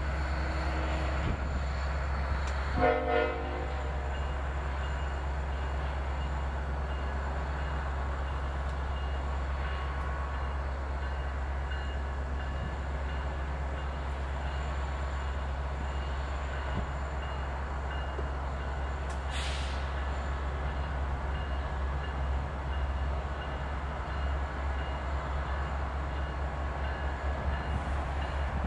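Diesel train locomotive running with a steady low rumble. A short horn blast comes about three seconds in, and a brief hiss past the middle.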